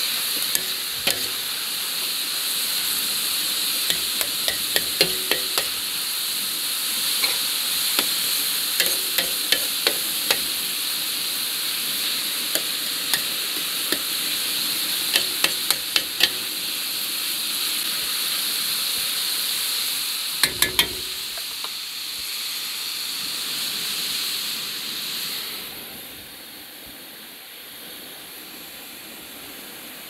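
Fatty meats and cubes of pork leg searing in oil in a large plow-disc pan over a hot wood fire, a steady sizzle broken by sharp clicks and scrapes of a spatula against the metal as the meat is stirred. Near the end the sizzle falls to a much quieter hiss.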